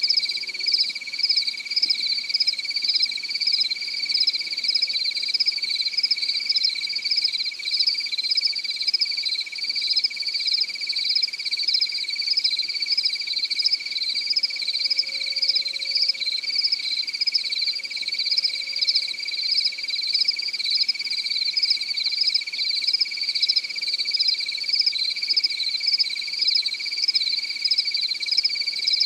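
Night chorus of crickets: a continuous high trill with a higher, rhythmically pulsing chirping above it, unbroken throughout.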